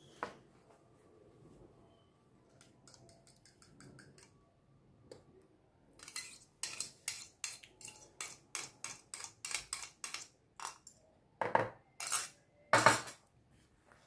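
Metal spoon scraping and clinking against mixing bowls as beaten eggs and oil are scraped into the dry cake ingredients. It starts with a few scattered clicks, then about halfway through comes a quick run of scrapes at two or three a second, and three louder knocks near the end.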